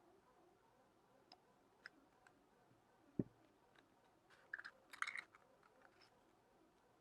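Faint paper-crafting handling sounds: scattered light clicks and paper crinkles, with a soft thump about three seconds in and a short cluster of crinkling around five seconds in.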